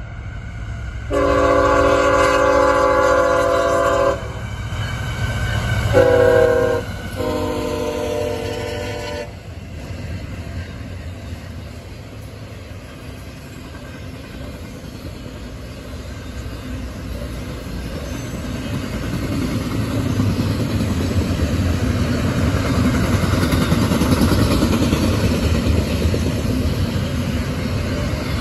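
CSX freight locomotive horn sounding a multi-tone chord: a long blast, a short one, then another long one. Then the steady rumble and wheel clatter of intermodal stack cars and trailer flatcars rolling past, growing louder in the second half.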